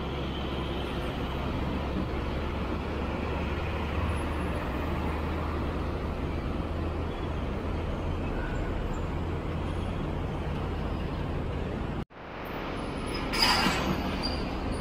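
Heavy diesel container trucks and road traffic passing, a steady low engine drone with tyre and road noise. The sound drops out suddenly about twelve seconds in and fades back, followed by a short, loud hiss of air from a truck's air brakes.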